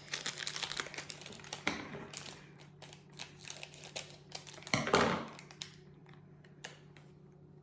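Rapid small clicks and crinkles of a plastic spoon and powder sachet being handled while candy powder is spooned out, thinning out after about three seconds, with one louder rustling scrape just before five seconds and a lone click near the end.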